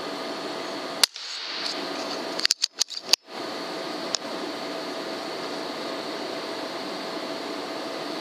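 Steady hiss and faint hum from a night-vision rifle scope's built-in recorder. It is broken by a sharp click about a second in and a quick cluster of clicks and knocks between about two and a half and three seconds.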